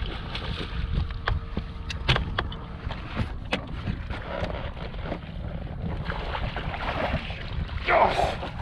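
Wind rumbling on the microphone aboard a bass boat on open water, with scattered sharp clicks and knocks and a louder burst of noise near the end.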